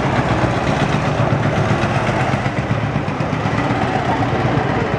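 Road traffic: motorbike, scooter and jeep engines running and passing close by, with a steady engine drone underneath.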